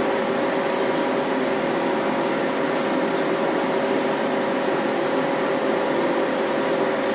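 Steady machine noise with a constant hum, like a fan or blower running. A few faint short snips of grooming scissors sound over it, about a second in and again around three to four seconds in.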